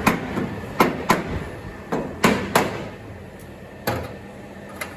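Sharp knocks on sheet-metal body panels, about six irregular blows, mostly in pairs in the first three seconds, as a new outer wheelhouse panel is worked into place under the body lip.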